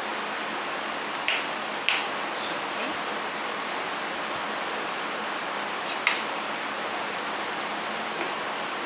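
A kitchen knife knocking on a cutting board while vegetables are cut: three sharp knocks, two close together about a second in and one near the middle, over a steady hiss.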